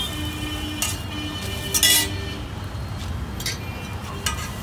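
Steel spatula clinking and scraping against a large flat griddle as parathas are turned, with a few sharp ringing metal clinks, the loudest about two seconds in, over a steady low background rumble.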